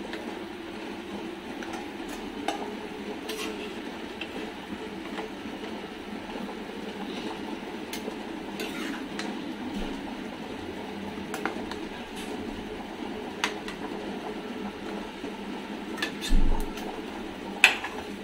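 Metal slotted spoon clinking and scraping against a metal kadai as potatoes are lifted out of mutton curry, with scattered light clicks over a steady low background noise. Near the end come two louder knocks of the spoon against the pan.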